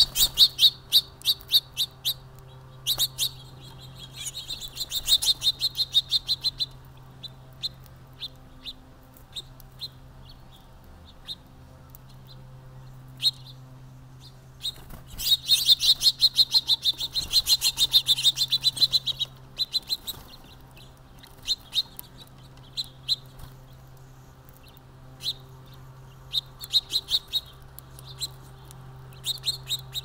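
Small feeder birds, house finches among them, chirping in fast bursts of quick high chirps, with the busiest bursts just after the start, a few seconds in, around the middle and near the end. A faint steady low hum runs underneath.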